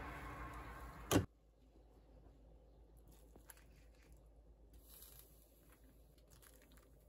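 A pot of tteokguk (rice-cake soup) boiling, a noisy bubbling that breaks off with a click about a second in. After that only faint room tone with a few small taps.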